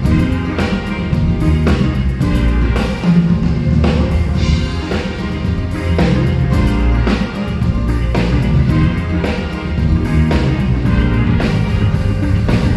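Live band playing a song during a soundcheck: a drum kit with kick and snare keeps a steady beat over bass and sustained chords.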